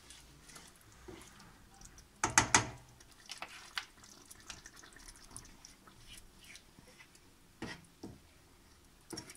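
Spoon scooping blended spinach purée out of a plastic bowl into the risotto pot: wet plops and scrapes, with a quick run of three knocks about two seconds in and single knocks near the end.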